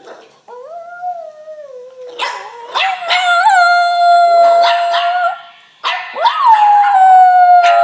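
Jack Russell terrier howling in long drawn-out notes: a softer, falling howl first, then louder held howls, a brief pause a little past the middle, and another long howl that rises then settles to a steady pitch.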